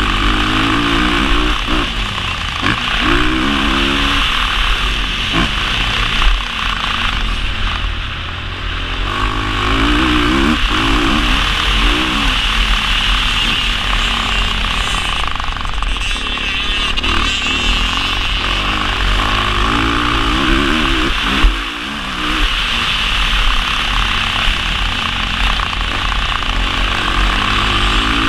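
Honda CRF450 single-cylinder four-stroke motocross engine revving hard on track. Its pitch climbs and falls every few seconds as the rider works the throttle and gears, with short throttle-offs about eight seconds in and again about twenty-two seconds in. A constant rushing noise runs underneath.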